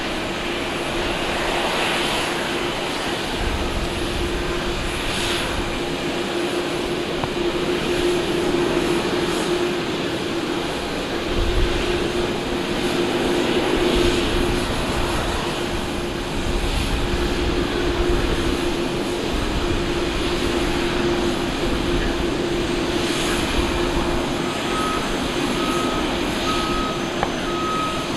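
Boeing 787-9's GE jet engines running at taxi power: a steady rush of engine noise with a constant hum. Near the end a ground vehicle's reversing beeper starts, beeping over and over.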